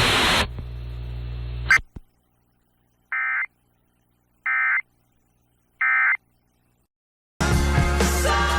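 Emergency Alert System SAME data tones: three short, identical buzzy bursts about a second and a half apart, the end-of-message code closing a warning. A short hum ending in a click comes before them. A longer, louder burst starts near the end.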